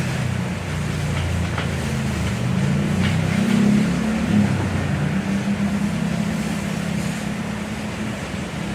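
Steady low motor hum whose pitch wavers slightly, with a hiss above it and a few faint clicks.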